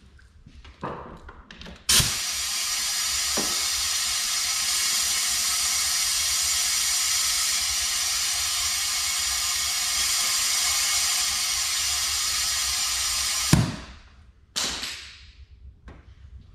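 Compressed air hissing steadily through the venturi of a coolant vacuum-fill tool, pulling a vacuum on the cooling system of a Nissan VQ40 engine toward 30 inHg. It starts suddenly about two seconds in, runs for about eleven and a half seconds and cuts off, and a short second blast of air follows about a second later.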